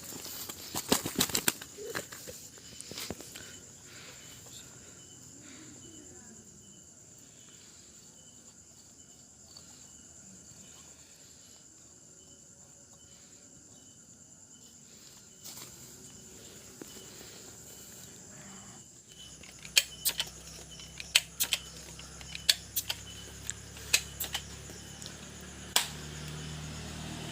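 Night insects chirring steadily at a high pitch, with scattered sharp clicks and knocks in the first few seconds and again in a cluster about twenty seconds in, and a low hum coming in near the end.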